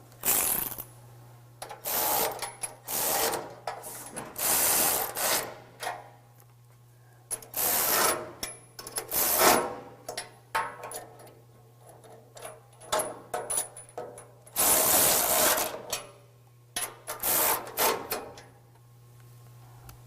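Hand ratchet wrench clicking in a series of short strokes with brief pauses between them as bolts on a truck bumper's winch tray and brackets are tightened.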